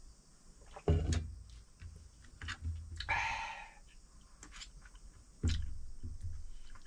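Two dull thumps, about a second in and near the end, with small scattered clicks and a short hiss about three seconds in: objects being handled and set down.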